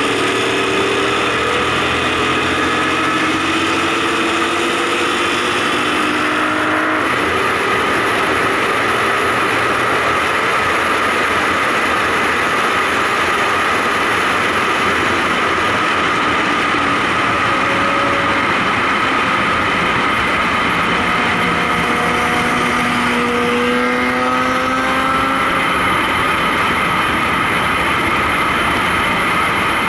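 Car driving at highway speed heard at an open side window: steady heavy wind and road noise, with engine tones that slowly rise in pitch at times as the car accelerates.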